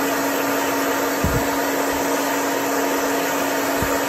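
Handheld hair dryer running steadily, blowing air to dry a small metal sewing machine part just out of an ultrasonic cleaner: an even rush of air over a steady motor hum.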